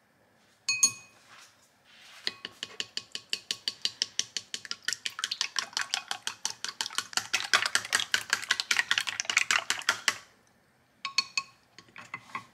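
Wooden chopsticks beating raw eggs in a glass bowl. A ringing clink on the glass comes about a second in, then rapid, even clicking of the chopsticks against the bowl for about eight seconds, and a couple more clinks near the end.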